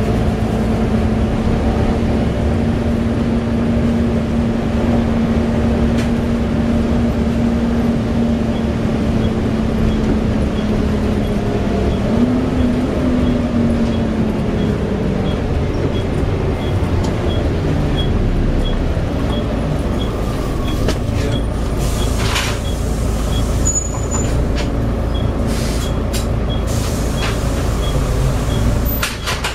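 Volvo B7TL double-decker bus running, heard on board: a continuous engine and driveline drone with a steady whine that steps up about twelve seconds in and fades out soon after. Several sharp knocks and rattles follow in the second half.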